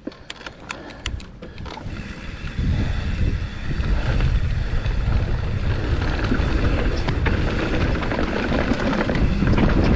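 Mountain bike starting down a rough dirt trail, heard from a camera mounted on the fork: a few sharp clicks in the first two seconds, then a steady rumble of tyres on dirt and wind on the microphone builds up about three seconds in and stays loud.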